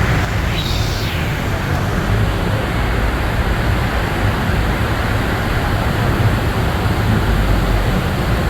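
Rain hissing steadily over a city road, with road traffic rumbling underneath. A brief swish rises and falls in pitch within the first second.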